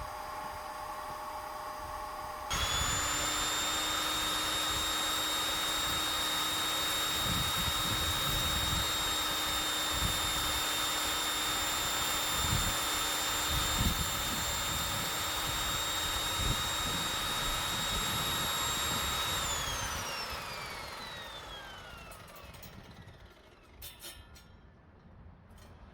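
Table saw with an Evolution 10-inch 60-tooth carbide-tipped fine-wood blade, switched on about two seconds in and running with a steady high whine while cutting a thick piece of dried hardwood, with irregular low thumps as the board is fed. Near twenty seconds in, it is switched off and the whine falls in pitch as the blade spins down.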